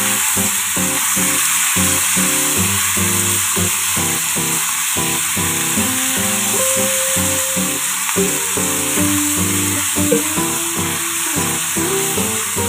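Pork pieces sizzling steadily in hot oil in a pan, left unstirred so they sear and brown on the bottom rather than stewing in their own water. Background music plays along.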